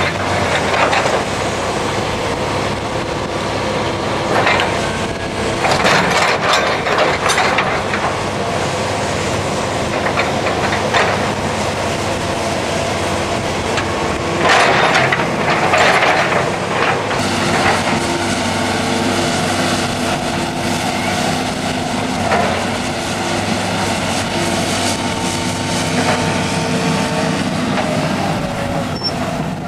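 Heavy construction machinery running steadily, with louder bursts of clanking and crunching about five seconds in and again around the middle.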